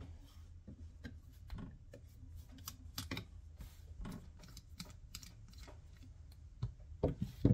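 Scattered light clicks and taps of small metal parts being handled as the carbon brushes are pulled from a DC drive motor's brush holders, with a couple of sharper clicks near the end.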